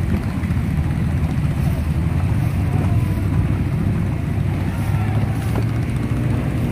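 A small boat's motor running steadily under way, a dense low drone, with wind rushing over the microphone.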